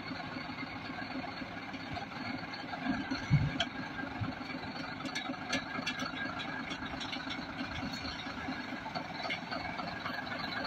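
Heavy eight-wheel lorry's diesel engine running steadily as the loaded truck crawls through mud, with a single low thump about three seconds in and a few faint clicks a little later.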